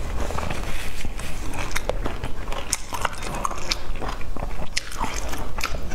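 Close-miked chewing and wet mouth clicks of a person eating soft steamed dumplings, with irregular sharp smacks.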